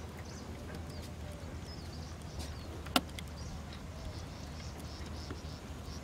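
Outdoor ambience of small birds chirping faintly and intermittently over a steady low rumble, with one sharp click about three seconds in.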